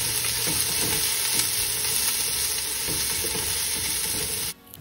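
Chopped onions, curry leaves, ginger and garlic sizzling in hot coconut oil in a pan, stirred now and then. The sizzle cuts off suddenly near the end.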